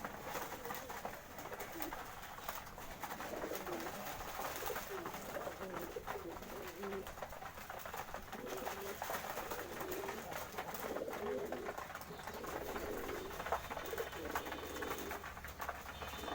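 Pet pigeons cooing, a steady run of short low coos, often overlapping, with scattered light clicks.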